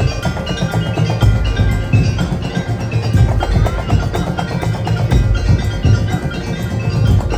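Gamelan ensemble playing: a dense, continuous pattern of struck, ringing metal keys over steady low drum and gong tones.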